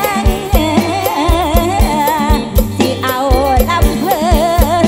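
A woman singing a Thai mor lam-style song into a microphone over a live band, her melody wavering and ornamented, with a heavy kick drum about three beats a second and a strong bass line.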